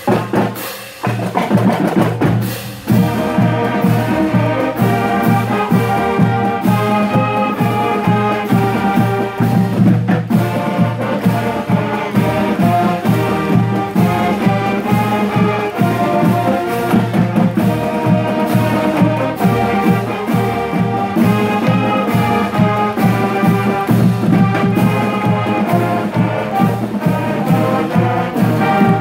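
High school marching band playing live: saxophones, sousaphones and other brass over a steady drum beat. The full band comes in about three seconds in and plays on steadily.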